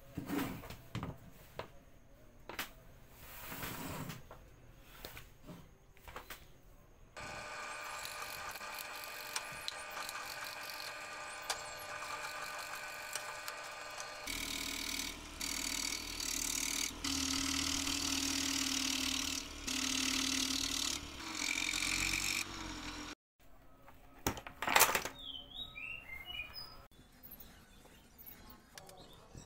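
Small wooden toy parts clicking and knocking as they are handled. Then a benchtop drill press runs steadily and drills small holes in a thin wooden board in three louder passes. A few sharp knocks of wooden parts on the bench come near the end.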